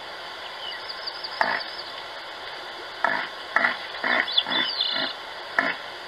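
Red deer giving short, gruff grunts in an irregular series, about seven, most of them bunched in the second half. A bird twitters faintly in the background.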